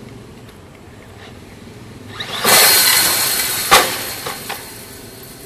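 Electric RC monster truck crashing at a wire-mesh fence: a sudden loud clattering rattle about two seconds in that dies away over a couple of seconds, a sharp bang partway through, and a few lighter knocks as the truck tumbles.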